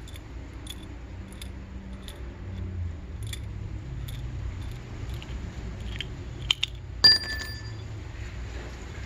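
Crosman Nitro Piston gas-piston air rifle being handled: light mechanical clicks, then about seven seconds in one sharp metallic crack with a brief ringing tone after it.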